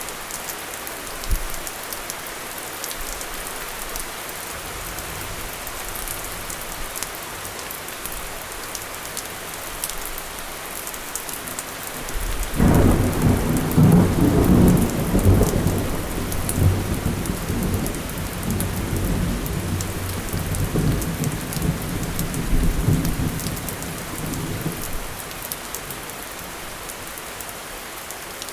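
Steady rain falling, with sharp drops pattering close by. About twelve seconds in, a long roll of thunder rumbles in, is loudest for a few seconds, then rolls on and fades over about ten more seconds.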